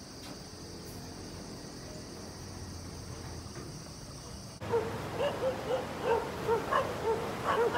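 A steady hiss, then about halfway through, at a cut, a dog barking in quick short barks, about three a second, over a steady rushing noise.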